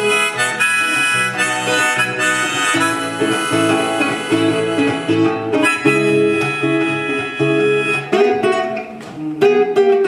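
Acoustic guitar and harmonica playing a song's instrumental introduction: guitar chords under a held, reedy harmonica melody.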